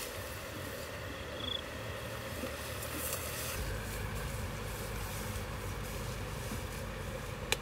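Steady outdoor rushing noise with wind buffeting the microphone, stronger from about halfway. A brief high chirp comes about a second and a half in, and a sharp click near the end.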